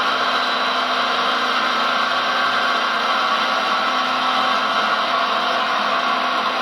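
Small electric motors of RC model construction vehicles whirring steadily, with a few faint steady tones in the whir.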